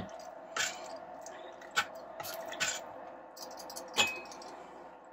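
Metal tongs clinking and scraping against the stainless steel inner pot of an Instant Pot while stirring vegetables in broth: a few scattered light clinks, the sharpest about four seconds in with a brief ring.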